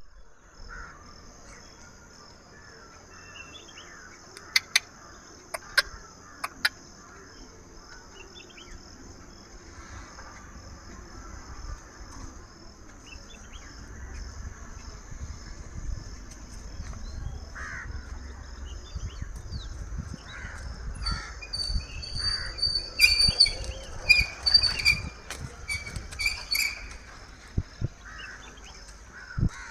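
Forest ambience: a steady high insect drone with scattered bird calls. Three sharp clicks come around four to seven seconds in, and a run of loud chirping bird calls comes near the end, over a low rumble.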